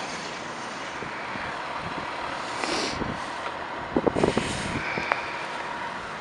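A Ford Expedition fire chief's SUV pulling slowly away, its engine running over a steady outdoor vehicle hum, with a brief swell in the noise just before three seconds in. A cluster of short knocks follows about four seconds in.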